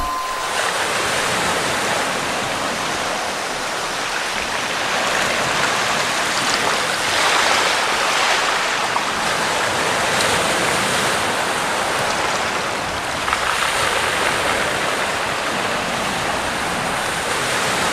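Steady rushing hiss with no distinct events, a little stronger at times.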